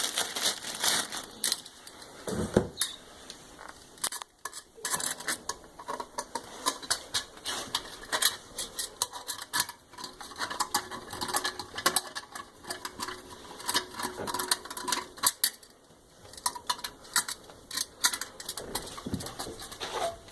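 Small metal clicks and rattles of nuts and washers being threaded onto toilet tank-to-bowl bolts and tightened down, in quick irregular bursts.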